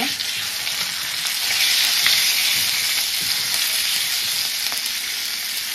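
Indian borage leaves and onion sizzling in hot ghee in a pan: a steady frying hiss, with a few faint clicks.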